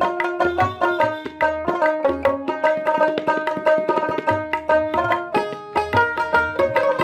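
Instrumental background music: a quick plucked-string melody over a steady hand-drum rhythm.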